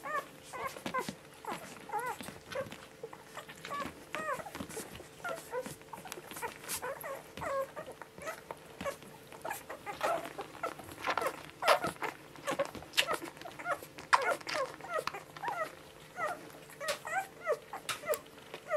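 One-week-old border collie puppies squeaking and whimpering as they nurse, many short high squeaks throughout, amid frequent small wet suckling clicks.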